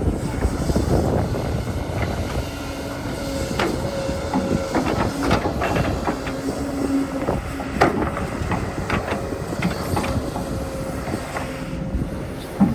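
Digging machinery at work: a steady running noise with a whine that comes and goes, and scattered clanks.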